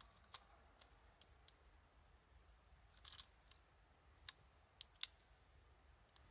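Great spotted woodpecker pecking at pine bark: faint, irregular single taps, about ten in six seconds, the loudest about five seconds in.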